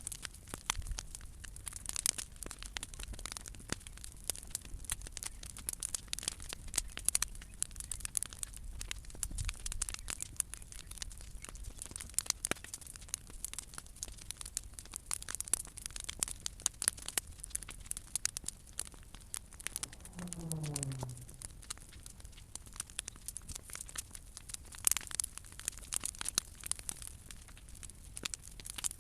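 Bonfire of old decking timber and cut branches burning, with dense, irregular crackling and popping throughout. A short falling tone sounds once about two-thirds of the way through.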